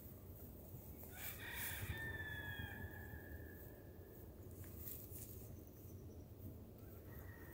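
A rooster crowing, faint: one long crow starting about a second in, and another starting near the end.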